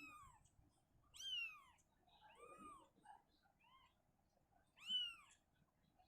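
Week-old kittens mewing: about six short, high, arching cries, the clearest a little after one second in and just before five seconds.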